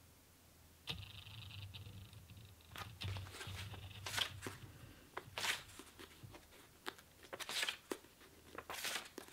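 Pages of a paperback manga volume being leafed through: several brief, fairly quiet paper swishes and rustles a second or two apart.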